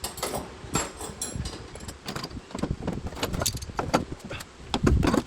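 Irregular metallic clinks and knocks of hand tools being handled, with a few heavier thumps near the end.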